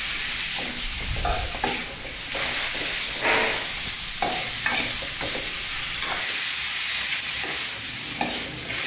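Chicken pieces and lemongrass sizzling in a steel wok as a metal spatula scrapes and turns them: a steady frying hiss with irregular scraping strokes. The raw chicken is being seared with fish sauce until the meat firms up.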